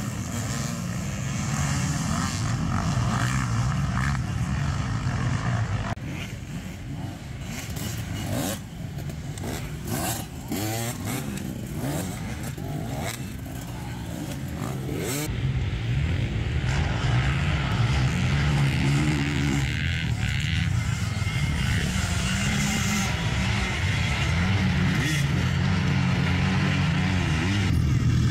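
Several dirt bikes racing on a motocross track, their engines revving up and down as they pass. The engines drop back for a stretch in the middle, with a few sharp knocks, then grow louder again over the second half.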